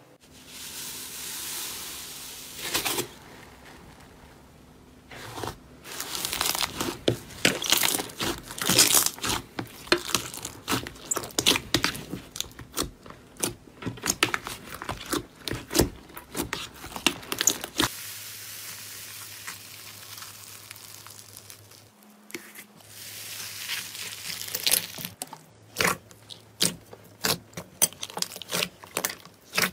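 Slime being pressed, poked and squeezed by hand: irregular bursts of sticky crackling and popping clicks, with quieter stretches between handlings.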